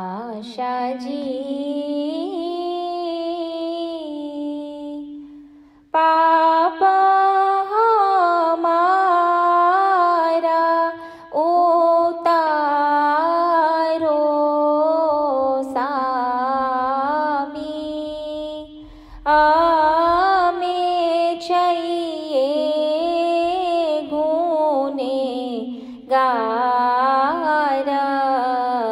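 A woman singing an Ismaili ginan solo, without instruments, in long ornamented phrases that waver in pitch, with short breaks for breath between them.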